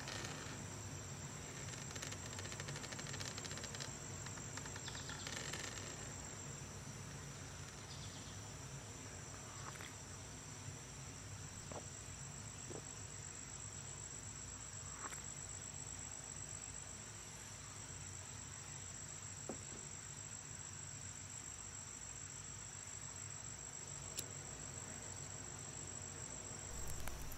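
Faint, steady chirring of insects, with a low hum underneath and a few scattered faint ticks.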